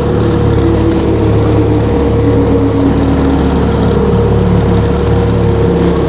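Boat motor running steadily: a low engine hum with a steady whine over it.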